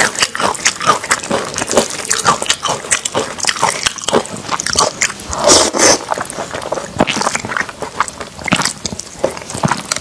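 Close-miked eating of glass noodles in a thick sauce: wet chewing and mouth clicks, with a louder slurp about five and a half seconds in.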